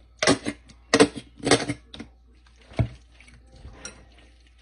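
More mayonnaise being added to a bowl of tuna pasta salad: four short, sharp wet sounds in the first three seconds, then faint handling noise.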